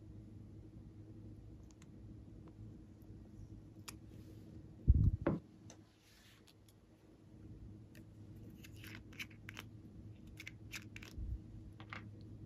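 Hands handling small plastic cosmetic containers: a couple of low thumps about five seconds in, then a run of light plastic clicks and taps near the end, over a steady low hum.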